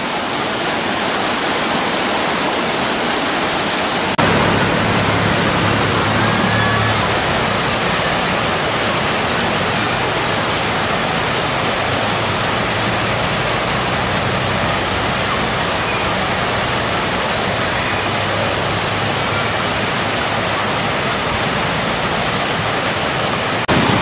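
Fast shallow river rushing steadily over rocks and rapids, a loud, even wash of water. About four seconds in it gets fuller and deeper in tone.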